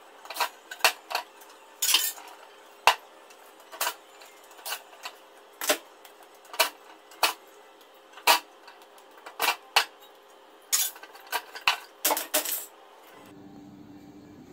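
Sharp metallic clinks and taps, irregular, about one or two a second, from working a scrapped air-conditioner's finned coil apart by hand; they stop shortly before the end.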